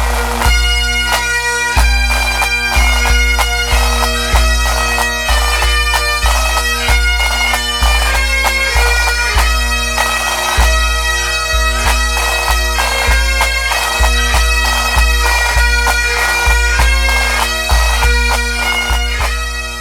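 Background music: a bagpipe-like melody over steady held drones, with a heavy low beat.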